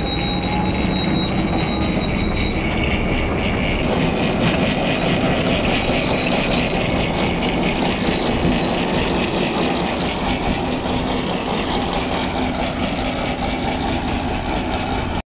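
Heavy farm machinery running steadily at working speed: a deep engine note under a dense mechanical rush, with several high, steady whining tones over it.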